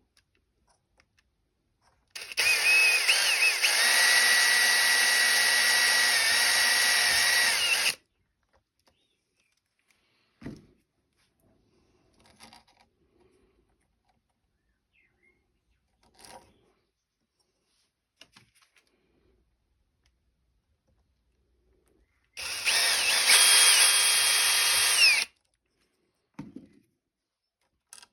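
Electric drill with a very small bit boring a hole. It runs steadily for about six seconds, with a whine that shifts in pitch, then runs again for about three seconds near the end. A few light knocks and handling sounds come in between.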